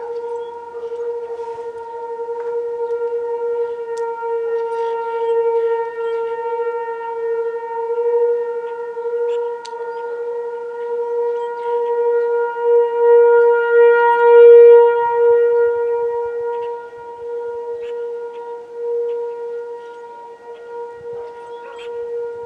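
American Signal T-128 outdoor tornado siren sounding one steady, unwavering tone for the statewide tornado drill test. Its loudness swells and fades as the rotating head sweeps past, loudest about two thirds of the way through.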